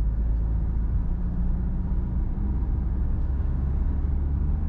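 Car driving along at steady speed: a continuous low rumble of engine and road noise with a faint steady engine hum.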